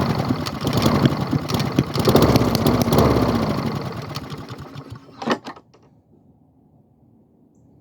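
Honda lawn mower engine firing on a squirt of gas primed into it after a pull start. It runs loudly for about four seconds, fades out as it dies, and gives one last cough about five seconds in. It runs only on the hand-primed fuel, which the owner puts down to carburetor trouble.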